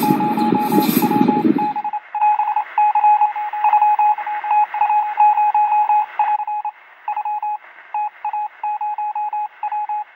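Radio-style signal of beeps at one steady pitch, keyed on and off in irregular short and long pulses like Morse code, sounding thin and narrow like a transmission. The last of the music ends about two seconds in.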